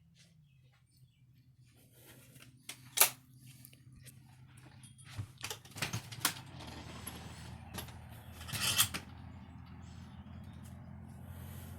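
Handling noise: a scatter of sharp clicks and knocks, the loudest about three seconds in and several more around six seconds, then a short rustling burst near nine seconds, over a low steady hum that grows louder after about six seconds.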